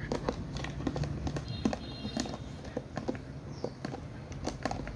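Samoyed puppy chewing a hard vinyl toy: irregular clicks and taps of teeth gnawing on the plastic.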